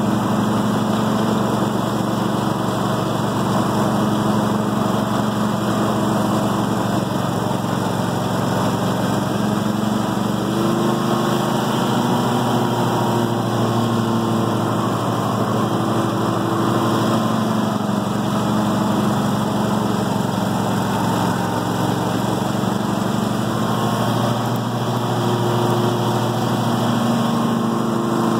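Craftsman garden tractor's 26 HP Kohler Courage Pro V-twin engine running steadily under load while climbing a steep grass slope. Its pitch shifts slightly a few times, about a third of the way in and again later.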